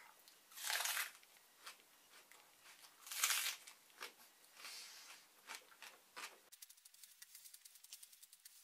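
Close mouth noises of a person chewing a raw onion: crunching and wet breathy bursts, two louder ones about a second in and about three seconds in. Near the end the sound changes suddenly to faint, rapid clicking.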